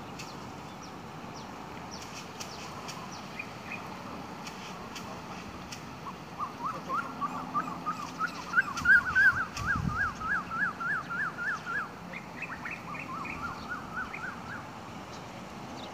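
A bird calling: a fast run of short rising-and-falling notes, about three a second, growing louder and higher toward the middle, then a second, shorter run. A dull thump is heard about ten seconds in.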